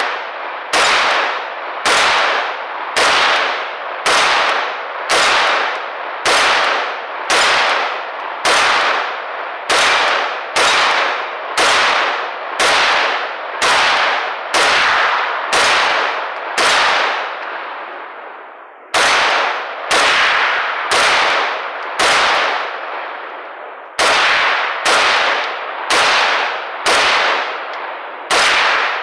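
A long string of single gunshots fired at a steady pace, a little under two shots a second, each shot echoing and trailing off before the next. The firing breaks off briefly twice, about two-thirds of the way through and again shortly after, then carries on.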